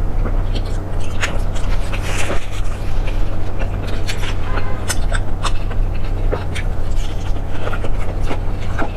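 Close-miked chewing and mouth sounds of someone eating: irregular wet clicks and crackles, over a steady low hum.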